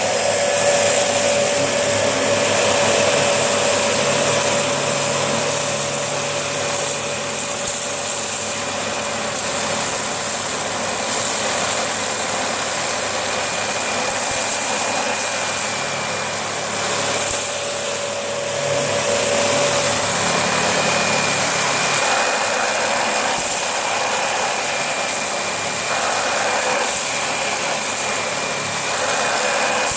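Dyson DC25 ball upright vacuum cleaner running at full power with a steady high motor whine and rushing air, pushed over carpet to pick up spilled cornflakes and Rice Krispies.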